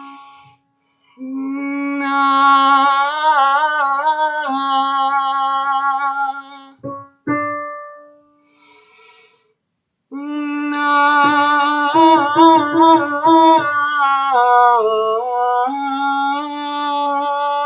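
A woman's voice singing two long sustained phrases on a vowel, with vibrato. The held note wavers and steps between nearby pitches as the diaphragm shifts the sound and its intensity. A single piano note sounds between the two phrases, about seven seconds in.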